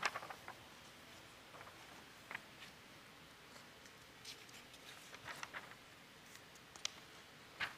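Pages of a large pulpit Bible being turned and smoothed flat: faint, scattered paper rustles and soft flicks, with a louder page flick near the end.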